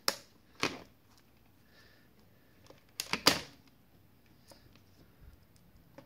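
A few short, sharp plastic clicks and taps as multimeter test probes are handled and pressed against an SAE connector: two near the start and a close pair about three seconds in.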